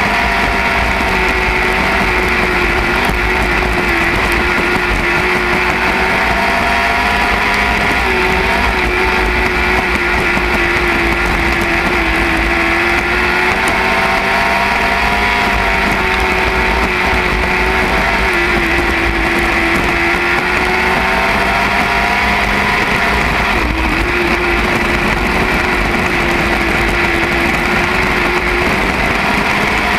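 Lightning sprint race car engine running hard, its pitch dipping and climbing back about every five seconds as the throttle comes off and back on around the track, over a constant low rumble.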